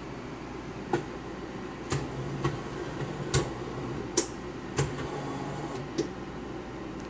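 Dr.coffee F11 bean-to-cup espresso machine just after finishing an espresso: about seven sharp mechanical clicks, with a low motor hum coming in twice for about a second.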